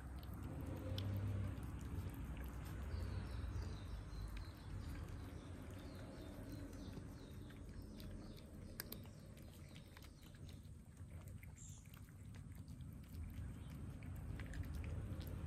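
Stray cats chewing and crunching food, with scattered short clicks.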